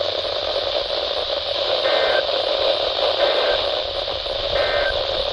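Steady radio static hiss from a weakly received weather-radio channel. In the middle come three short, faint two-tone data bursts about a second and a half apart, the pattern of an Emergency Alert System end-of-message signal.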